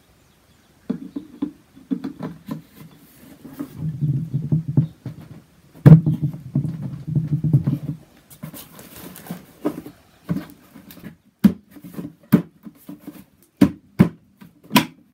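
Hard plastic parts of a Hozelock 2-in-1 hose reel rattling and knocking as the winding handle is pushed onto the hub and turned and the reel is moved. A choppy low rattling starts about a second in, with a loud knock about six seconds in, then a run of sharp clicks and knocks.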